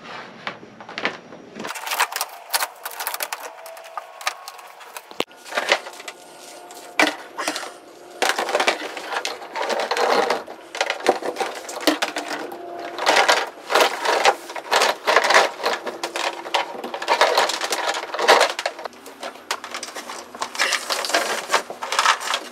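A blue Ethernet cable being uncoiled and fed by hand through wooden boat cabinetry: irregular rustling, knocking and clattering of the cable and hands against the wood panels.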